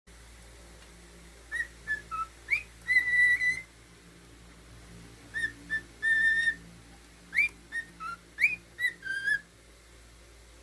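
A cockatiel whistling a tune: three phrases of clear whistled notes, short upward slurs mixed with a longer held note, with pauses between them.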